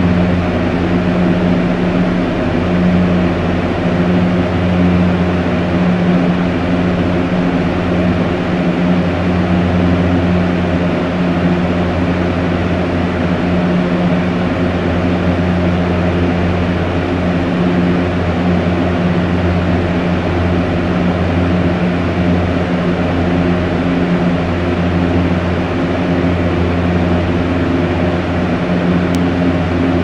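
Electric fan running steadily on a strong setting: a constant rush of air over a steady low motor hum.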